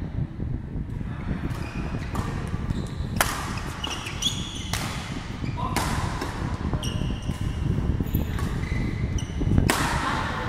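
Badminton rally: rackets smack the shuttlecock in sharp cracks, loudest about three seconds in, about five seconds in and near the end. Short high squeaks from players' shoes on the court come in between.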